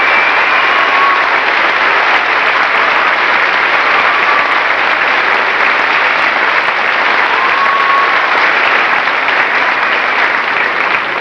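A large audience applauding steadily, heard on an old VHS camcorder recording.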